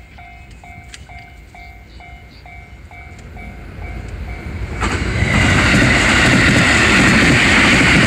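Japanese level-crossing warning bell ringing its steady "kan-kan" at about two strikes a second. About five seconds in, a JR West 223 series electric train passes close by, and its loud running noise on the rails swells and drowns out the bell.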